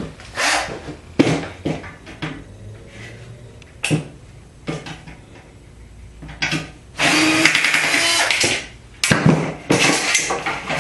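A power drill runs for about a second and a half, about two-thirds of the way through, backing out the screw that holds the ballast in a fluorescent light fixture. Before and after it come short knocks and clanks of the sheet-steel fixture being handled.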